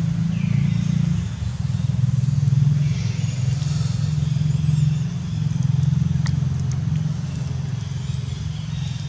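A motor engine running steadily, heard as a low, even hum.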